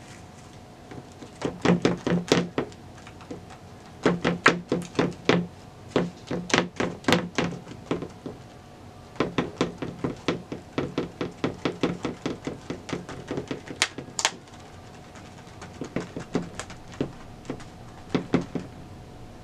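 Hands patting and pressing fresh grip tape down onto a skateboard deck, in several runs of quick dull thumps a few per second with short pauses between.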